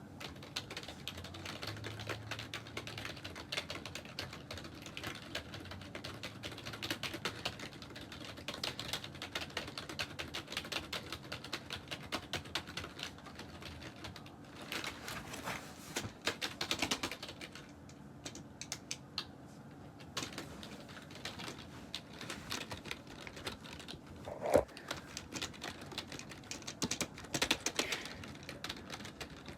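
Typing on a computer keyboard: a fast, uneven stream of key clicks that thins to scattered keystrokes for a couple of seconds in the middle, with one much louder single knock a few seconds before the end.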